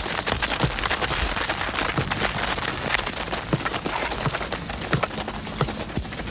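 Many feet trotting and scuffing on a gritty dirt pitch as several players dribble footballs, a dense, irregular patter of crunching steps and light ball taps.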